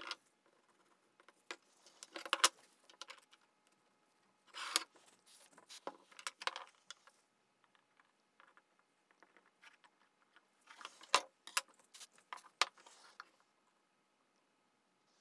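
Light clicks, taps and rustles of thin wooden strips handled by gloved hands and set against a wooden workbench, in scattered bursts with quiet gaps between.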